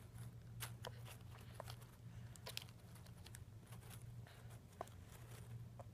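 Faint crunching and small clicks of a toddler chewing bunny-shaped crackers, over a steady low hum.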